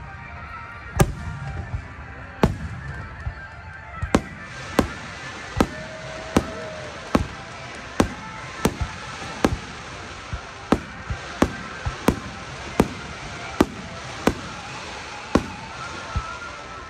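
Fireworks shells bursting in a steady barrage, about twenty sharp bangs at a little over one a second, over music.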